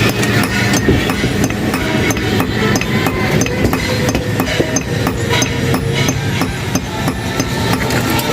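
Blacksmith's hammers repeatedly striking iron on an anvil: a quick run of sharp, ringing metal blows, several a second.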